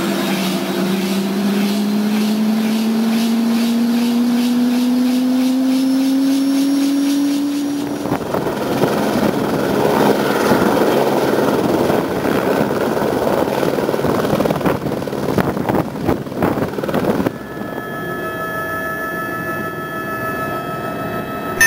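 Air-ambulance helicopter starting up, its turbine whine rising steadily in pitch for about eight seconds. It then gives way to the broad rush of rotors and engine heard from outside. In the last few seconds this changes to the steadier drone heard inside the cockpit.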